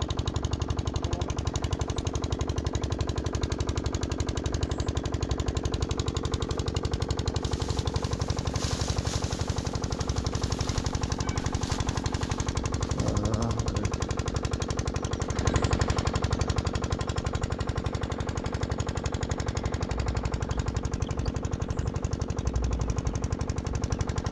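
A motor running steadily with a rapid, even pulse.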